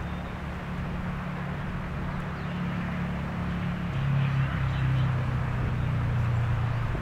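Low, steady engine drone that drops in pitch and grows louder about halfway through, as of a motor passing close by.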